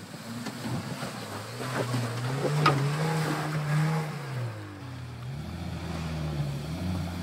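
Off-road 4x4 SUV engines revving up and down as they drive through a muddy creek and climb past, with water and mud splashing around the tyres. The engine is loudest a little past halfway, then eases, and a second vehicle's engine rises near the end.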